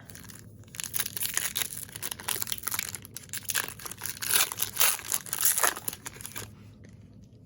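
A foil trading-card pack wrapper being torn open and crinkled by hand, a dense run of crackling and tearing that is loudest a little past the middle and stops about a second before the end.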